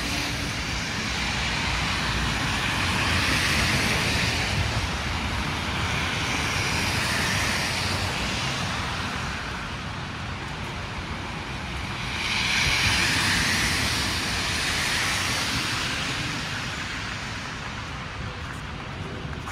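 Street traffic: vehicles passing one after another in a steady rushing hiss that swells and fades several times, loudest about twelve seconds in.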